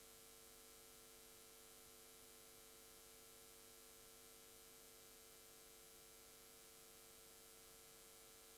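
Near silence: only a faint, steady electrical hum on the audio line, with the live sound cut off.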